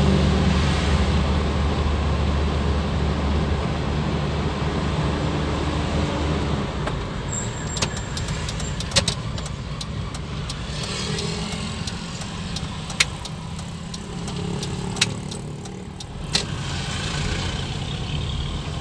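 Motor vehicle engine running steadily with a low hum that drops away after about six seconds, leaving road noise with several sharp clicks or knocks.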